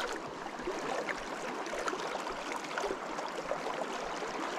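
River current rushing steadily, an even hiss of flowing water.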